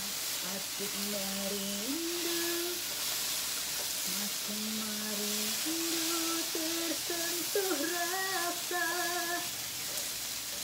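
A woman singing a slow melody in long held notes, over the steady sizzle of potatoes frying in a pan.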